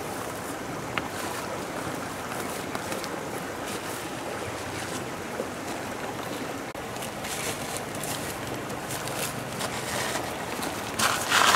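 Steady outdoor rushing background, with a single sharp click of stone on stone about a second in as river stones are set by hand, and a louder rustle and clatter near the end.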